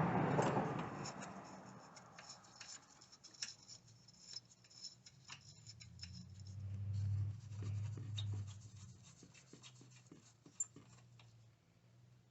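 Small irregular clicks and scrapes of a wrench, socket and loose metal parts being handled at a car battery, with a low hum swelling for a few seconds midway.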